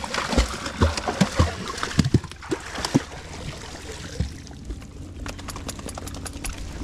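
Water splashing and sloshing in uneven strokes for the first few seconds, then settling to a lighter trickling wash with small clicks.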